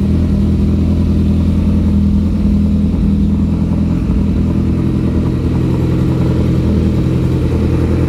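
2008 Kawasaki ZX-14's inline-four engine idling steadily through a full Muzzy exhaust system.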